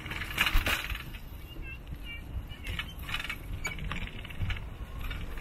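Bicycle rattling and clinking as it is ridden, over a steady low rumble of tyres and wind, with a louder clatter about half a second in. A few short high chirps come about one and a half seconds in.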